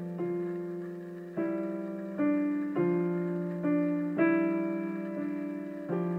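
Slow, gentle piano music: single notes struck about once a second over a low held note, each ringing and fading.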